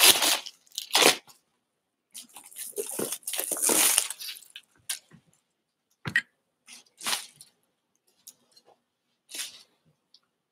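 Plastic shrink wrap crinkling and tearing in bursts as it is pulled off a cardboard box, with a longer stretch of crinkling about two seconds in. A soft knock of the box being handled comes about six seconds in.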